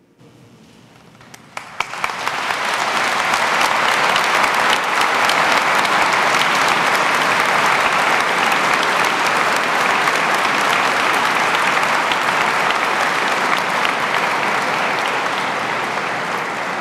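Large audience applauding: a few scattered claps about a second and a half in quickly swell into full, steady applause that eases off slightly near the end.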